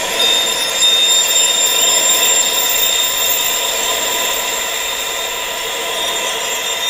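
Steady wind-sound hiss, weighted toward the high end, with several steady high-pitched tones layered over it. A new high tone comes in just after the start. This is a tinnitus sound-therapy mix of wind and high-pitched tones meant for masking and neuromodulation.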